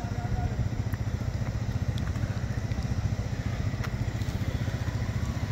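Steady low engine drone and road noise from the moving vehicle the recording is made from.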